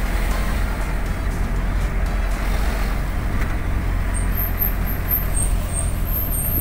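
A vehicle driving along a wet concrete road, heard from inside: a steady low rumble of engine and tyre noise that does not change.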